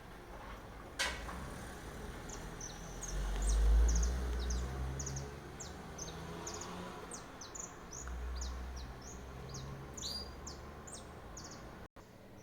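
Small wild birds chirping, many short high calls in quick succession. A sharp click comes about a second in, and low rumbles rise under the calls twice, the louder one a few seconds in.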